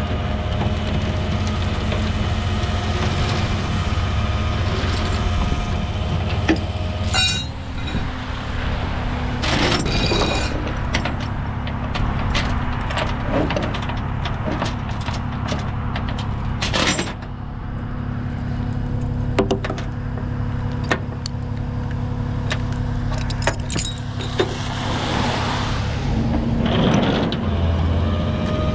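Peterbilt 337 rollback tow truck's diesel engine running steadily. Over it, steel chain and rigging hardware clink and clank several times as the winch line and chains are hooked up on the deck.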